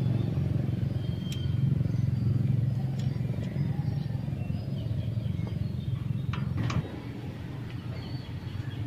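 Light metallic clicks of hand tools on the rocker arm and tappet adjuster of a Honda TMX155 pushrod engine as the intake valve clearance is set, a few scattered ticks with two close together late on. Under them runs a steady low motor-like rumble.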